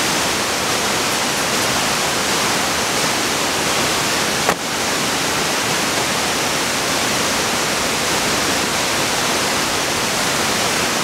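Waterfall rushing as a steady, loud wash of falling water, with one short knock about four and a half seconds in.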